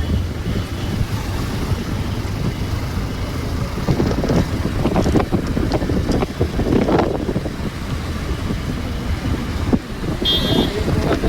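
Motorcycle riding along a road, its engine running under heavy wind buffeting on the microphone. A short high-pitched tone sounds about ten seconds in.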